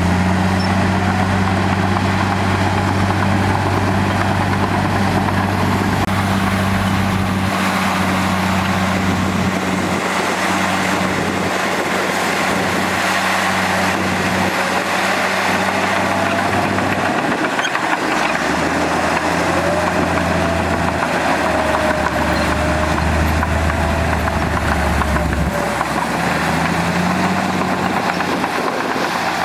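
Heavy earthmoving machine's diesel engine running steadily under work, its low note shifting several times, with a faint wavering whine in the second half.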